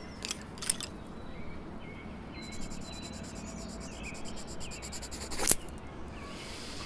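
Wooden coloured pencils clicking together as one is picked from a pile, then a pencil scratching rapidly back and forth on notebook paper as a drawing is coloured in. The scratching ends with one sharp tap about five and a half seconds in, over faint outdoor ambience.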